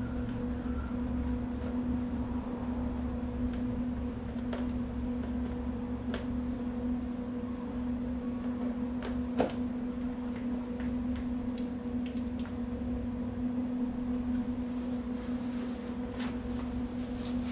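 Steady electrical machine hum with a low rumble, and a few faint clicks and taps scattered through it.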